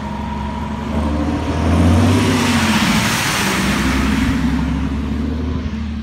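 Toyota Corolla's engine revving up as the car pulls away slowly over a snowy road, loudest about two seconds in and then easing, with a hiss of tyres through snow and slush.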